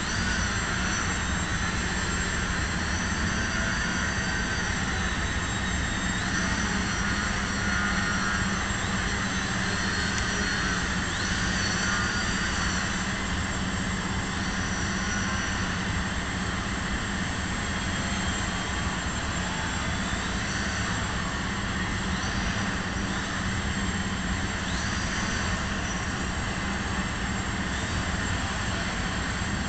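Electric motor and propeller of a small radio-controlled aerobatic model airplane buzzing steadily, its whine rising and falling again and again as the throttle is worked through hovers and manoeuvres.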